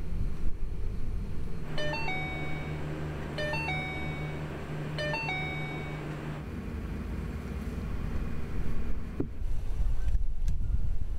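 Three electronic warning chimes from the Ford Mustang's dashboard, each a short stepped two-note tone, about a second and a half apart. They sound over the low rumble of the car. A single sharp click comes near the end.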